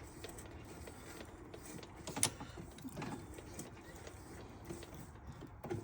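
Faint mechanical handling sounds from hand-tapping a thread on a mini lathe: small ticks and scrapes as the tap in its tailstock holder is worked. One sharper click comes about two seconds in.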